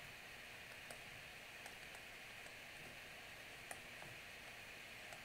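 Near silence: faint steady hiss with a few soft, irregular clicks from a stylus tapping a tablet screen while writing.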